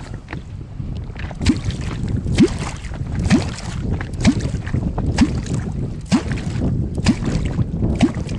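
A catfish kwok struck into the water again and again, about once a second, eight times. Each stroke is a short deep plop that sweeps upward in pitch: the call used to draw wels catfish up from the bottom. A steady low wind rumble runs underneath.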